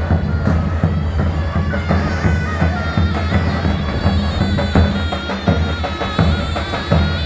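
Davul drum and a reed wind instrument playing Turkish folk music: repeated deep drum strokes under a loud, wavering high melody.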